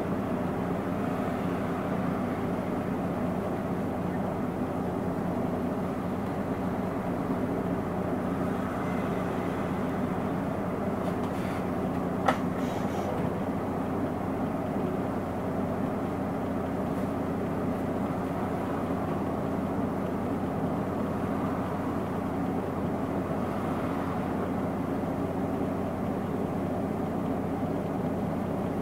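Hino Blue Ribbon II non-step city bus heard from inside the cabin, its diesel engine running at a steady drone with no revving or gear changes. A single sharp click sounds about twelve seconds in.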